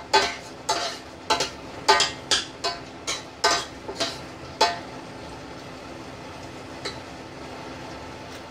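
A utensil stirring diced carrots and corned beef in a stainless steel saucepan, clinking against the pan about a dozen times with a short ring each time. The clinks stop a little over halfway through, leaving a low steady hum.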